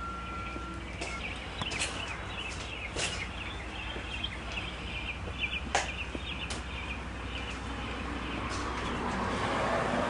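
Small birds chirping over and over, with scattered sharp clicks and knocks and a low steady hum underneath; a rushing noise swells near the end.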